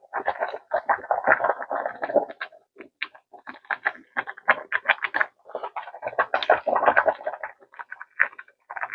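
Kitchen work: rapid, irregular clicking, tapping and rustling, busiest near the start and again about six to seven seconds in.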